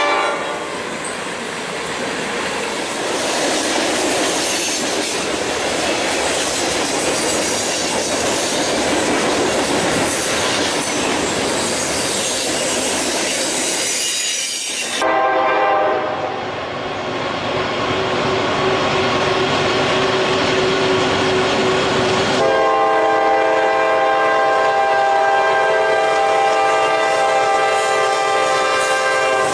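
A loud, steady rushing noise for about half the time, then a long horn chord of several notes sounding together over it, growing stronger about three-quarters of the way through.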